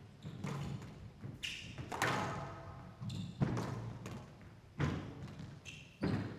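Squash ball hit hard back and forth in a fast rally on a glass court: sharp racket strikes and ball-on-wall thuds about every second and a half.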